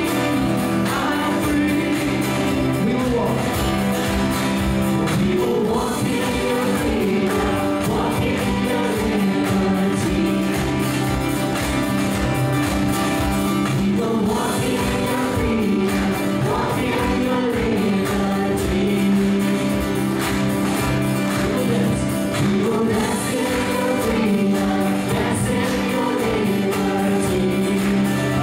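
Live worship band performing a gospel song: several singers, women and a man, singing over acoustic guitar and keyboard, with the melody rising and falling over steady held chords.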